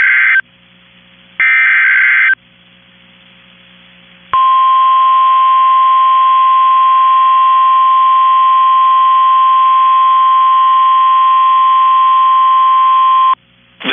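Emergency Alert System warning opening. The tail of one SAME digital header burst is followed by a second burst of about a second. After a short gap comes a single steady alert tone near 1 kHz, typical of the NOAA Weather Radio 1050 Hz warning tone, held for about nine seconds before cutting off.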